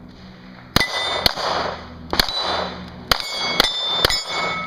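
Six handgun shots fired in quick succession over about three and a half seconds, starting almost a second in, each followed by the ringing clang of a struck steel target plate.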